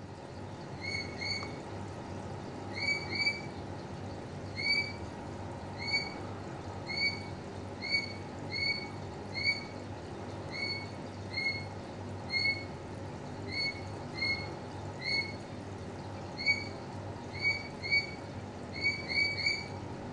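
Short, high-pitched chirps from an unseen animal, repeating irregularly one to two times a second, singly or in quick pairs and threes, over a steady low hum.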